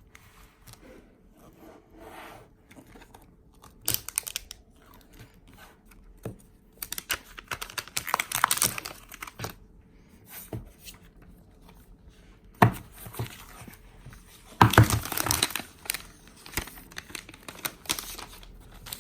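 Plastic wrap being torn and crinkled off a new phone's box, in irregular rustling bursts, the loudest a little past halfway through.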